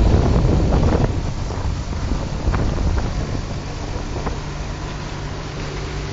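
An engine idling steadily, with wind and handling rumble on the phone's microphone, heaviest in the first second or so, and a few faint ticks.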